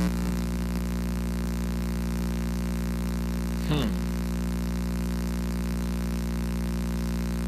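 Steady electrical buzzing hum on a corded handheld microphone's signal, with one brief scratchy noise a little under four seconds in. The hum is the audio fault that the speaker thinks might be the microphone cable.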